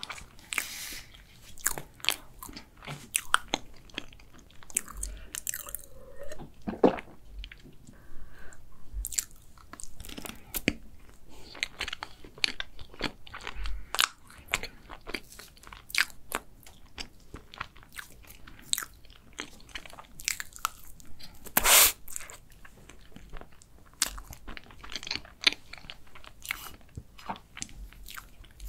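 Close-miked chewing and wet mouth sounds of someone eating soft chocolate sponge cake with whipped cream: a steady stream of short smacks and clicks, with one louder, longer mouth sound about two-thirds of the way through.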